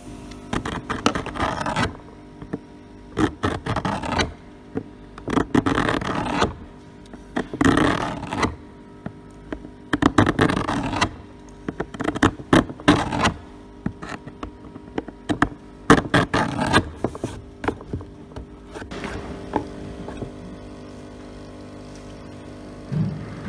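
A hand cutter and scraping tool working a plastic car panel, cutting a V-groove along a crack and roughening the surface. The scraping comes in repeated strokes about one every second or two, then stops about 19 seconds in. After that a quieter steady hiss follows as the hot air welder nozzle preheats the plastic.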